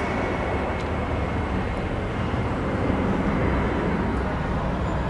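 Boeing 767 twin jet engines at takeoff power as the airliner rolls down the runway and rotates: a steady, dense rumble with a faint high whine that fades after the first second or so.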